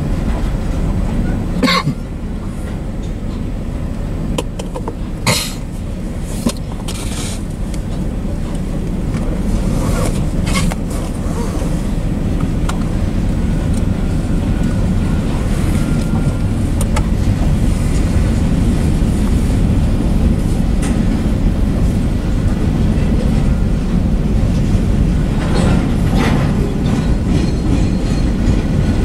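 Freight train cars rolling past at a grade crossing: a steady low rumble of steel wheels on rail that swells slightly partway through. Several sharp knocks stand out, most of them in the first ten seconds and one more near the end.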